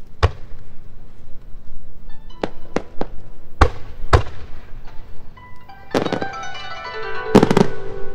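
Aerial fireworks shells bursting: about six sharp reports in the first four seconds, then two bigger bursts with a long crackling tail, over music with sustained ringing notes.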